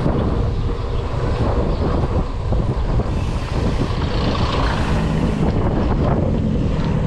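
Wind buffeting the microphone of a mountain bike rider at speed, over a steady rumble of tyres on concrete road. About three seconds in, a hiss rises for a couple of seconds as a van and a car pass close alongside.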